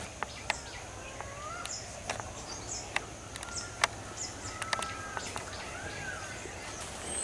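Forest birds calling: several slurred whistles that rise and fall, and a run of short, high chirps. A few sharp clicks or snaps come in between, the loudest a little under four seconds in.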